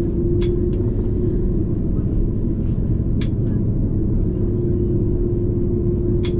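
Airbus A330-200 cabin noise while taxiing: a steady low rumble of engines and airframe, with a steady hum that drops out for a couple of seconds midway. Three sharp clicks come about three seconds apart.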